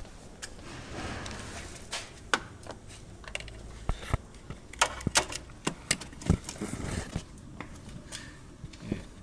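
Irregular sharp clicks and knocks of hands and parts being worked on a Honda Zest's front suspension, as it is checked by hand for the play behind a knocking noise while driving.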